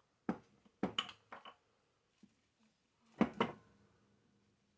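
Small metal screws and nuts clinking as they are handled and set down: a sharp click about a third of a second in, a few more around one second, and a louder pair of clinks a little past three seconds.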